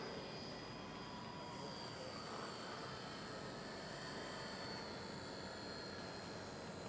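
Electric radio-controlled model plane flying overhead, its motor and propeller giving a thin, steady whine whose pitch sinks slowly as it passes.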